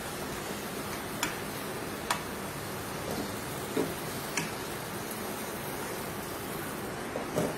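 Hot sunflower oil sizzling steadily in an aluminium pot as fried potatoes are lifted out with a slotted spoon, with about five short clicks from the spoon and pot.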